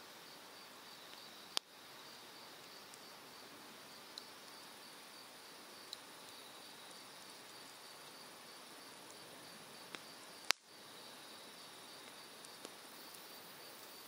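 Cedar firewood burning in an open fire, giving two sharp loud pops, about one and a half seconds in and about ten and a half seconds in, and a few fainter snaps. Under it runs the steady rush of a mountain stream, with insects chirping in a fast pulsing trill.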